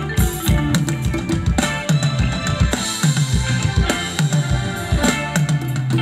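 Band playing Thai ramwong dance music, here an instrumental stretch: a drum kit keeping a steady beat of kick and snare under a bass line.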